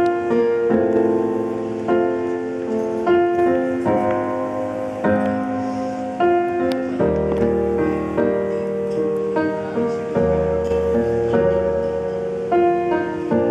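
Slow, gentle piano music played over a hall's loudspeakers, with notes and chords struck about once a second and left ringing.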